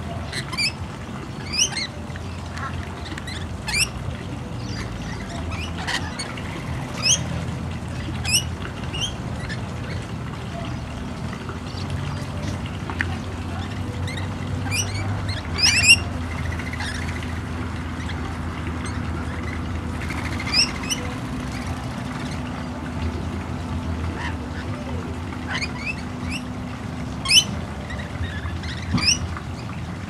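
Rainbow lorikeets giving short, shrill screeches every second or two as a flock feeds together on the ground, over a low steady rumble.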